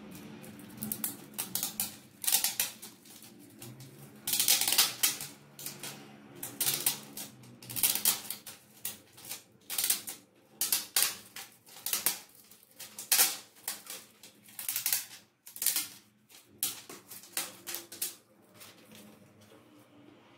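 Clear plastic bag being handled and crumpled by hand, crinkling in repeated bursts that die down near the end.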